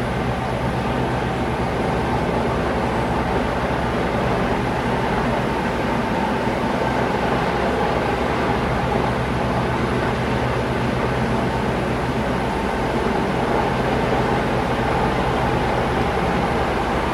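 Steady engine drone at an even level, with several steady humming tones over a rushing noise.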